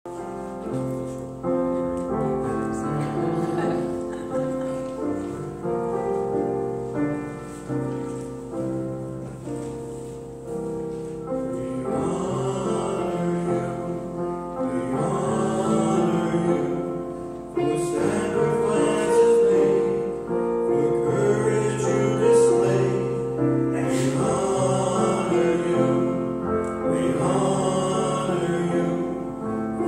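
A church keyboard plays an introduction of held chords, and about twelve seconds in two men's voices join, singing a hymn in duet over the accompaniment.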